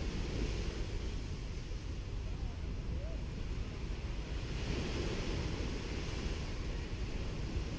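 Gentle sea waves washing onto a sandy beach, their hiss swelling once about five seconds in, over a low rumble of wind on the microphone.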